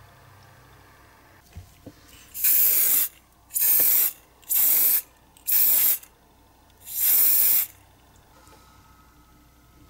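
Aerosol spray can hissing in five short bursts, each about half a second to a second long, into a small silicone mould.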